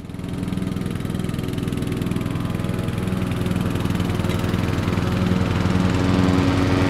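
Commercial zero-turn mower engine idling steadily with an even pulse. It fades in at the start and grows slightly louder.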